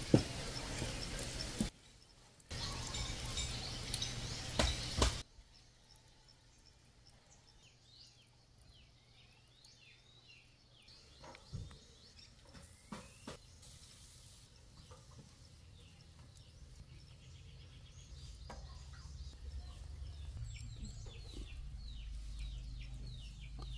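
Outdoor ambience of birds calling, with short high chirps through the quieter part, behind a loud steady rushing noise that stops abruptly about five seconds in. A few light knocks come around the middle, as bamboo skewers are set on the grill's metal grate.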